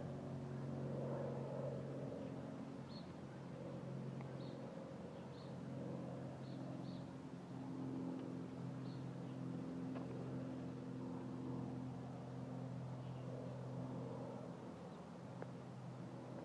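An engine running steadily, its low hum shifting slightly in pitch partway through, with a few short high chirps now and then.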